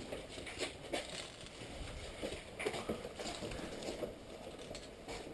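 Soft, irregular footsteps and the rustle of gear as a player moves, with light taps and clicks scattered through.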